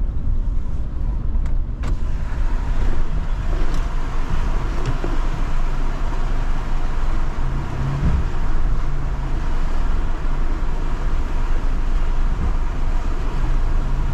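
Vehicle driving: a steady low engine drone under a constant wash of tyre and road noise.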